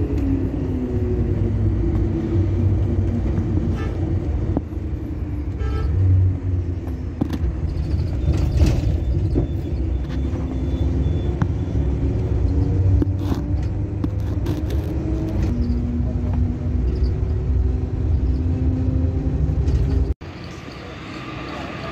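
Bus engine running with road rumble, heard from inside the moving bus. The engine's pitch slides down and back up several times as it changes speed, with a few short knocks and rattles. Near the end the sound cuts off sharply to a quieter steady noise.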